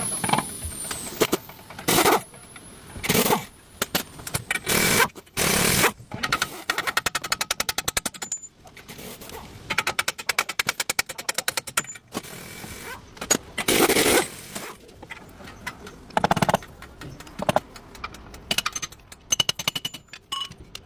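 Mechanic's tools at work on a Ford Taurus drive shaft: a string of loud short bursts, with runs of fast, even clicking in between, like power and ratchet tools on the shaft's bolts.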